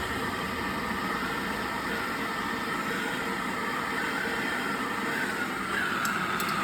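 Hand-held gas torch burning with a steady hiss, heating a copper pipe joint to soldering temperature.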